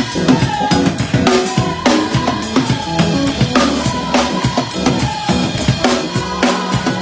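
Drum kit played live: rapid snare, rimshot and cymbal hits over the bass drum, in a busy continuous groove.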